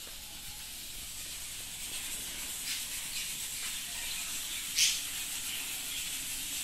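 Meat frying in a pan on a gas stove, a steady sizzle that grows louder. A few short crackles break through it, the sharpest about five seconds in.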